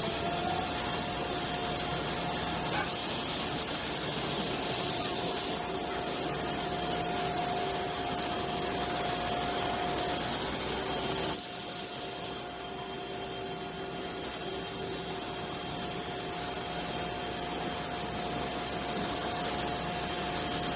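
CNC glass-processing machine running: a steady grinding hiss with a steady high whine over it. The sound drops a little in level, suddenly, about halfway through.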